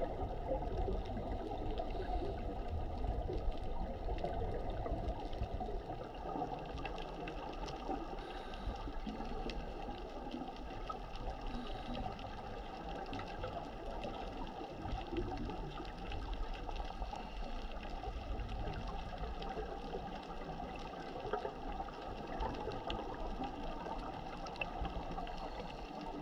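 Underwater ambience heard through a camera's waterproof housing: a steady low rush of water noise with faint crackling.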